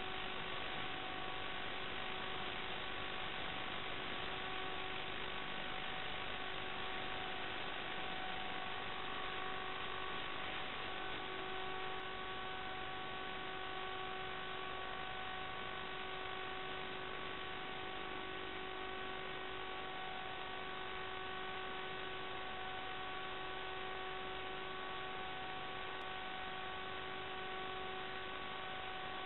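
Steady electronic hiss with several unchanging whining tones layered on it, the noise of an analog FPV video recorder's audio channel; it does not follow the flight at all.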